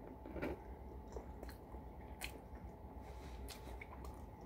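Faint close-up chewing of a grilled spaghetti sandwich, with scattered small wet mouth clicks about once a second.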